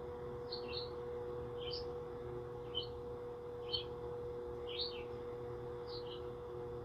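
A bird chirping repeatedly: short high chirps, about one a second, over a faint steady hum.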